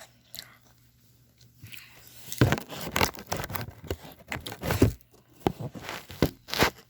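Plastic snack wrapper being crinkled and torn open, in irregular crackling bursts that start about two and a half seconds in.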